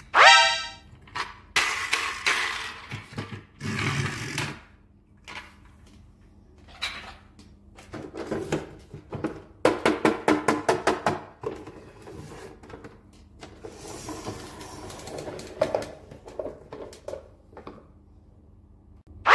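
A short rising tone at the start, then plastic toy trains and a Thomas-shaped plastic carry case being handled: knocks and scrapes, with a quick run of about a dozen clicks about ten seconds in.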